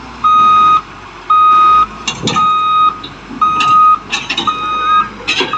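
Backup alarm beeping at a steady pitch, about one beep a second, over a Caterpillar D6R crawler dozer's diesel engine. Sharp metallic clanks come several times in the second half as the dozer's steel tracks crawl onto the trailer's ramps and deck.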